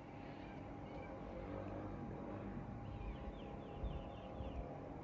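Quiet outdoor background with a low steady rumble. A bird calls a quick run of short, high, falling chirps about three seconds in.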